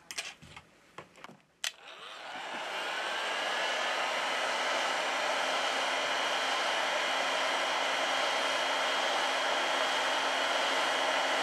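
Hot air gun blowing steadily, switched on about two seconds in, with a faint whine that rises as its fan spins up and then holds. The hot air is softening the adhesive that holds the phone's vibration motor, after a few light clicks of handling.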